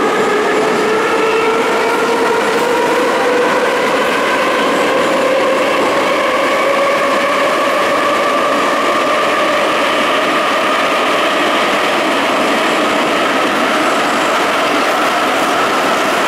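Ezh3 metro train running, heard from inside the passenger car: a steady rumble of the running gear with a whine of several tones that climbs slowly in pitch as the train gathers speed.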